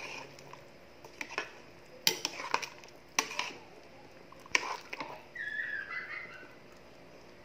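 Metal ladle stirring a simmering stew in an aluminium pot, knocking and scraping against the pot several times with sharp clinks. A brief wavering squeak follows about five and a half seconds in.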